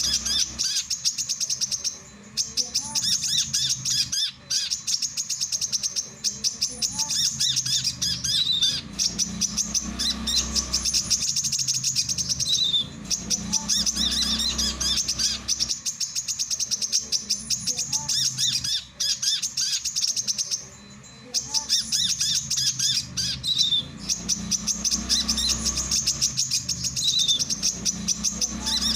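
Male brown-throated sunbird singing: long runs of rapid, high chittering trills broken by short pauses, with an occasional brief upward-sliding note, over a faint low hum.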